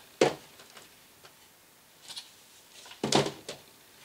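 Plastic DVD cases being set back onto a wooden shelf: a sharp clack just after the start, then a short cluster of clacks and knocks about three seconds in.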